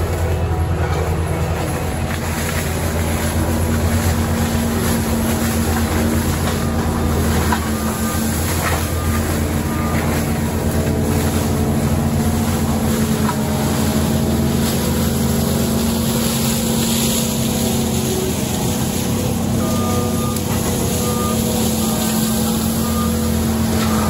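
Skid steer forestry mulcher's diesel engine running steadily under load as it works through brush. Near the end, short high beeps repeat at an even pace, like a reversing alarm.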